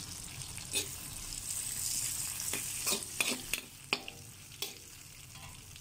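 Onion, garlic and flaked pomfret sizzling in hot oil in a pan while it is stirred, a steady frying hiss with the stirring utensil scraping the pan in several quick strokes, most of them between about two and a half and five seconds in.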